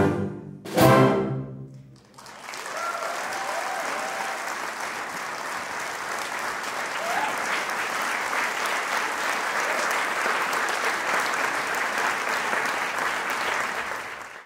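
A wind band's last two short, loud chords end the tango, and the audience breaks into steady applause about two seconds later. The applause cuts off abruptly at the end.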